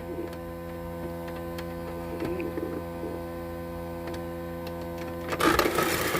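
Steady electrical hum with a few faint clicks, then a brief, louder noisy burst about five seconds in.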